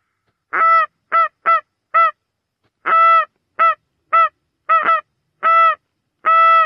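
A series of about eleven loud goose honks on one steady pitch, some short and clipped, some drawn out, in an uneven rhythm with clean gaps between them.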